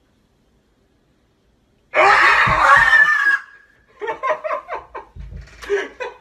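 A woman's sudden loud scream of fright about two seconds in, lasting over a second, then laughter in short bursts.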